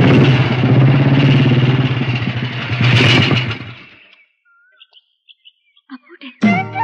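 Motorcycle engine running steadily as the bike rides along, fading away about four seconds in. A few faint high chirps follow, then music starts near the end.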